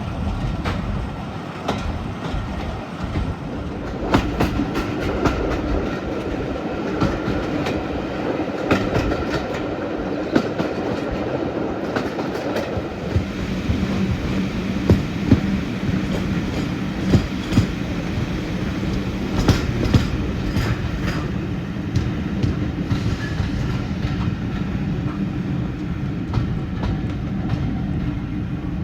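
Train running along the track with a steady rumble, its wheels clicking over rail joints.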